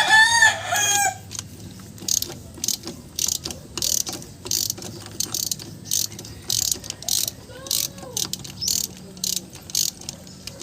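Ratchet wrench being worked in short strokes, a run of quick clicking bursts about two a second, as a nut on the rear axle is turned. A rooster crows loudly at the very start.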